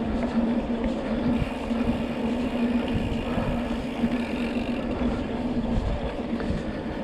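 Mountain bike in motion on a trail: low wind and rolling rumble on the on-board microphone, with a steady buzzing hum through it.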